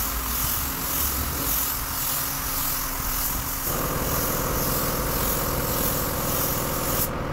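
Compressed-air paint spray gun hissing as paint is sprayed onto a bus's lower side panel, the hiss swelling and fading about twice a second; about halfway through a steady machine hum joins, and the hiss cuts off near the end as the trigger is released.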